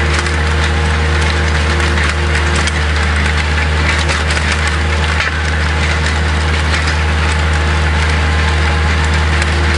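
Avant 7-series compact loader's diesel engine running steadily under load while its chain trencher attachment cuts a trench, with a dense, continuous crackling and rattling of soil and debris against the digging chain.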